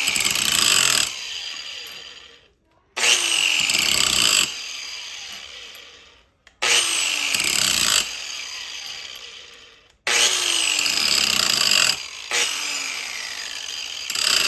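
Electric chainsaw-chain grinder switched on in short bursts, about four times: each time the wheel starts up with a sudden loud whir as it grinds the steel chain, then whines down in falling pitch as the motor is let off and coasts. The grinding takes down the chain's depth gauges (rakers).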